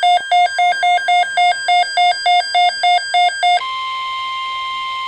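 NOAA Weather Radio EAS alert: a fast, evenly pulsing electronic data tone, about three to four beeps a second, gives way about three and a half seconds in to the steady single-pitch 1050 Hz weather-radio alert tone that signals an incoming watch or warning.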